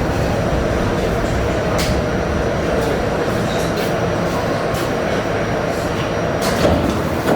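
R68A subway car running between stations, heard from inside the car: a steady rumble of wheels on the track with a few sharp clicks scattered through it.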